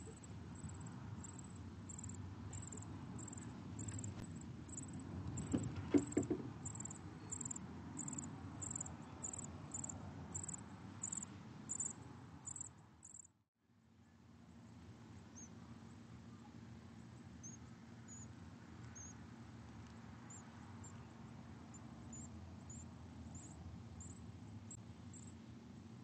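Dark-eyed junco nestlings begging: thin, high peeps repeated evenly about one and a half times a second over a low rumble. The sound cuts out briefly about halfway through, and the peeps then come back fainter and more scattered.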